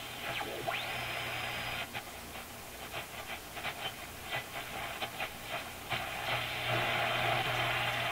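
Shortwave static and hiss from the speaker of a Marconi 201A tube radio as the dial is tuned across the band, with bursts of crackle, a brief thin whistle about a second in, and a steady low hum underneath.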